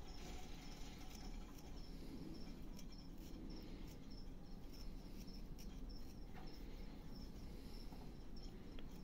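Carving knife whittling a block of wood: faint scraping cuts and small clicks as the blade takes off shavings. A cricket chirps steadily in the background, about three short chirps a second.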